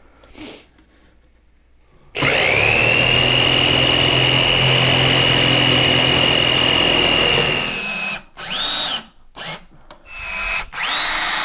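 A power saw spins up with a rising whine about two seconds in, cuts through a sheet of plywood for about five seconds, and stops. Near the end a power drill runs in a few short bursts, then spins up into a longer steady run as it drives a screw into the plywood backing on the wall.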